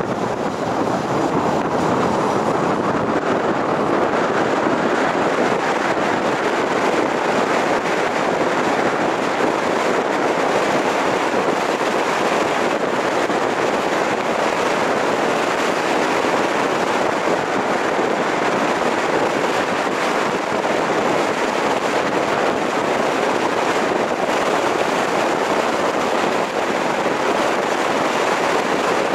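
Steady rush of wind and tyre noise from a car driving at road speed, picked up by a camera mounted on its roof.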